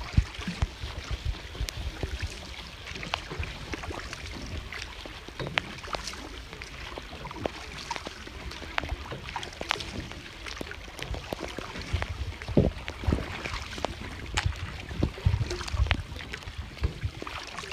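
A small rowboat being rowed: water splashing and lapping, with irregular knocks and low rumbles throughout.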